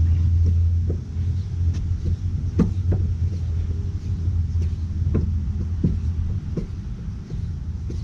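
Car jack being cranked down by hand, its screw and handle giving irregular creaks and clicks as the car lowers. A steady low rumble runs under it and is the loudest sound.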